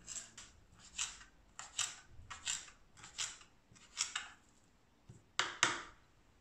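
Kitchen knife chopping blanched dandelion leaves on a wooden cutting board: a series of short cuts at an uneven pace of about two a second, the two loudest knocks near the end.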